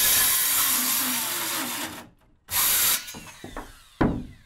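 Corded circular saw cutting through a 2x4 board: one long cut of about two seconds, a brief pause, then a short second burst before the blade winds down. A single sharp knock comes near the end.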